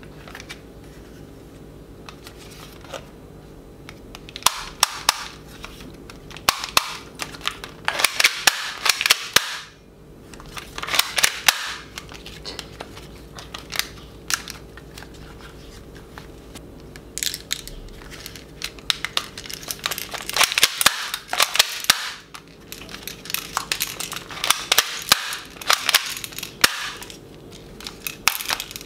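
Black plastic toy submachine gun fired in repeated bursts of rapid, rattling clicks, each burst lasting from under a second to a few seconds, with short pauses between.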